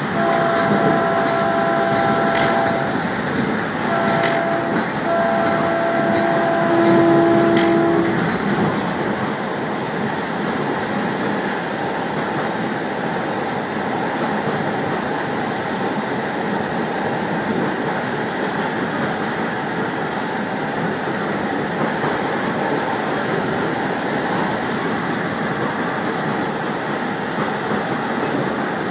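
Train running on the rails with steady running noise. Over the first eight seconds a multi-tone train horn sounds in blasts: a long one, a short one, then another long one. After that only the steady sound of wheels on track remains.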